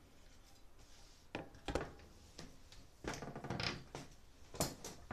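Handling noise from a Broan 655 bathroom ceiling heater-fan unit being worked on in its ceiling housing: a couple of separate knocks about one and a half seconds in, a busier clatter around three seconds in, and two sharp knocks near the end.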